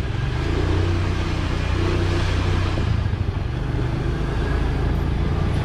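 Small motorbike engine running steadily while being ridden, heard from the rider's seat as an even low hum.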